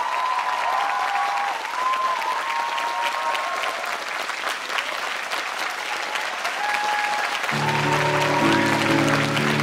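Audience clapping steadily over music: a high melody of long held notes, joined about three quarters of the way through by lower sustained chords.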